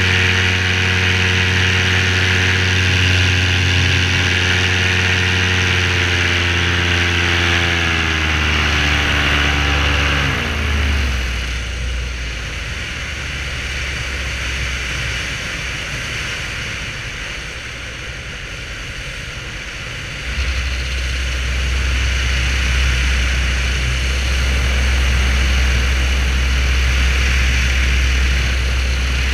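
Parajet V3 paramotor's engine and propeller running steadily, then throttled down over a few seconds with the pitch falling to a low idle, leaving a steady rush of wind. About two-thirds through, the engine is throttled back up and grows louder.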